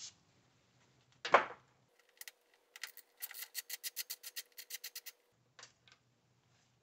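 A single loud clunk about a second in. Then a socket ratchet clicks rapidly, about eight clicks a second, for about three seconds as it is worked on a 10 mm headlight mounting bolt.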